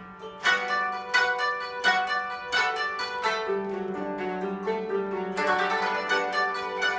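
Koto ensemble playing: after a soft start, strong plucked notes land about every three-quarters of a second over a held low note, and the plucking grows faster and denser near the end.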